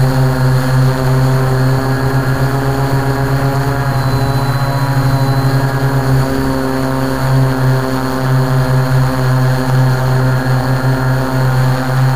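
Quadcopter's electric motors and propellers droning at a steady pitch, heard from the camera on board. The drone pulses briefly about four seconds in.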